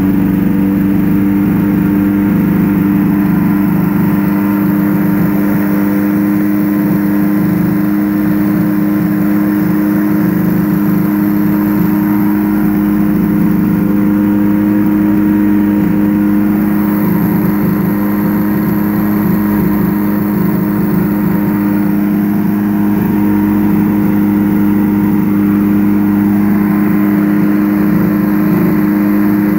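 Quicksilver ultralight aircraft's engine running steadily at a nearly constant speed, a loud, even pitched hum with no revving up or down.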